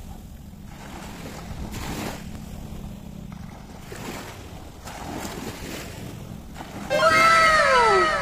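Steady low rumble with gusts of wind noise and sea surf by the boats. About seven seconds in, a loud set of overlapping pitched tones starts suddenly and slides downward in pitch.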